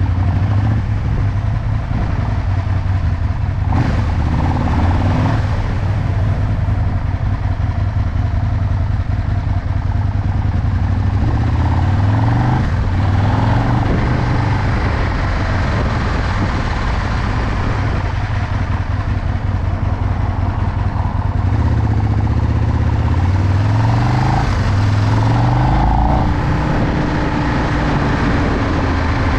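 Aprilia RSV 1000 R Tuono's 60-degree V-twin engine heard from the rider's seat, riding at low speed. It pulls up through the gears twice: the engine note rises and drops back at each shift, about twelve seconds in and again from about twenty-two seconds.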